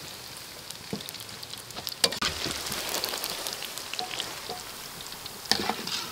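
Tofu deep-frying in a wok of hot oil, a steady sizzle with fine crackling. Two sharp knocks cut through it, about two seconds in and again near the end.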